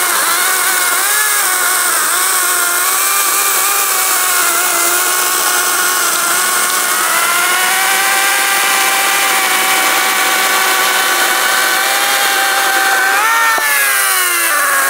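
ES Industry LCHS1454 54V cordless electric chainsaw with a 14-inch bar cutting through a 20 cm log: a steady motor whine whose pitch sags and wavers as the chain bites into the wood. Near the end, as the cut finishes, the pitch jumps up, dips sharply with a brief knock and climbs again.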